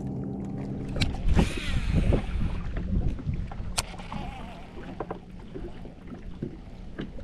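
Steady hum of a small electric motor on a bass boat, which cuts out about a second in. Low rumbling, rustling and a few sharp knocks follow as gear and the boat are handled.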